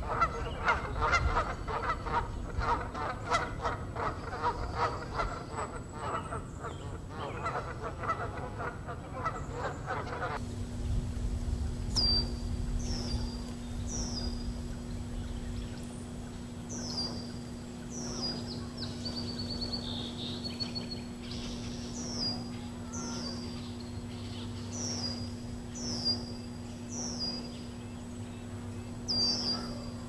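Canada geese honking, many loud overlapping calls in quick succession for about the first ten seconds. It then cuts to a small bird repeating a short, high call that drops in pitch every second or two, over a low steady hum.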